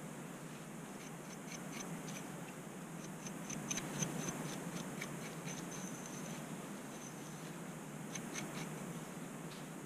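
Dry, scratchy scraping at the scalp through thick curly hair as dandruff flakes are worked loose: short sharp ticks coming in irregular runs, busiest in the middle, over a steady low hum.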